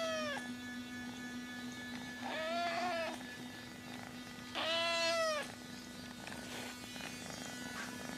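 Kitten meowing: two high, arching meows about two seconds apart, each close to a second long, with the end of an earlier meow right at the start.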